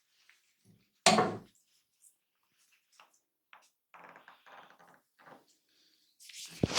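Barber's massage hands: two loud, sharp slaps on the body, one about a second in and one near the end, with quieter sounds of hands working on skin between them.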